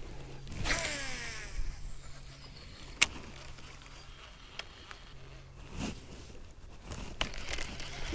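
Baitcasting reel whirring on a cast about a second in, its pitch falling as the spool slows, then a sharp click from the reel a couple of seconds later. Under it runs the low steady hum of an electric bow-mounted trolling motor, which stops for a moment and starts again.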